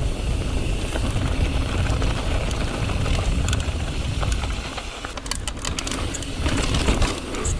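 Mountain bike rolling fast down a dirt trail: wind rumbling on the microphone and tyre noise, with a quick cluster of clicks and rattles from the bike about five seconds in.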